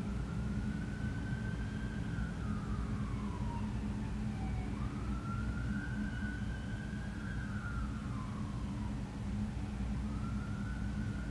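A siren wailing, its pitch slowly rising and falling in long sweeps, over a steady low hum.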